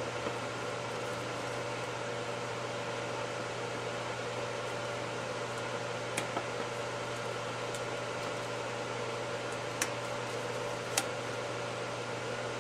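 A steady mechanical hum, with a few small sharp clicks as metal retainer clips are worked onto fuel injectors seated in a fuel rail: one about six seconds in and two louder ones near the end.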